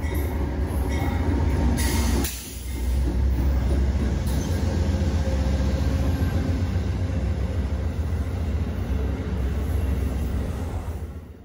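Amtrak passenger train, a diesel locomotive followed by stainless-steel coaches, rolling past along a station platform: a steady heavy low rumble with wheel-on-rail noise. The sound dips briefly about two seconds in and fades out near the end.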